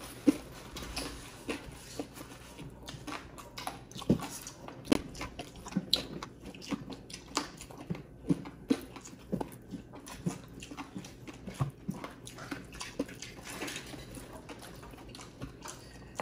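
Close-miked eating: two people chewing and biting food, with irregular short clicks and smacks of the mouth.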